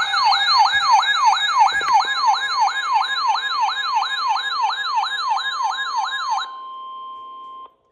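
Weather radio alert siren: a loud, fast, repeating rise-and-fall sweep, about three a second, that stops about six and a half seconds in. A quieter steady single tone, the NOAA Weather Radio warning alarm tone that heralds a warning, carries on for about another second and then cuts off.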